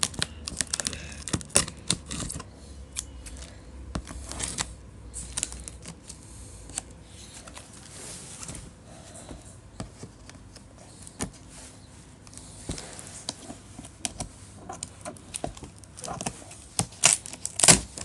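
Cardboard box being worked open by hand: irregular scratching, tapping and crinkling of cardboard and packing tape, with a run of louder sharp cracks near the end.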